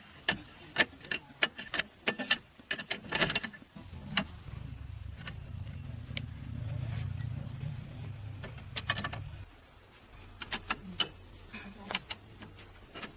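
Sharp metallic clinks and taps, like hand tools working on metal parts. From about four seconds in, a low steady hum runs alongside them and stops a little past the middle.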